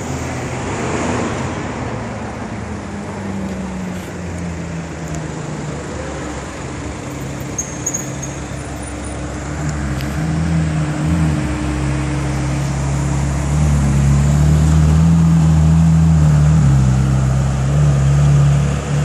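Ferrari 458's 4.5-litre V8 running at low revs as the car moves slowly in street traffic: a deep, steady engine note that grows louder about two-thirds of the way through as the car comes close.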